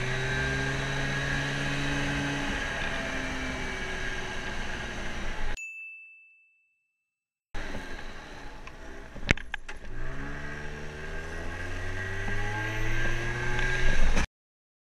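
50cc moped scooter engine running as it is ridden, its pitch falling off and then rising again as the throttle is opened, with wind noise on the mic. The sound fades out for about two seconds midway and cuts off suddenly just before the end.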